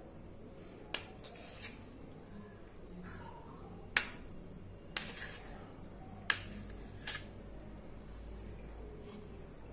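Knife slicing boiled taro on a plate, the blade knocking sharply against the plate about five times, loudest about four seconds in.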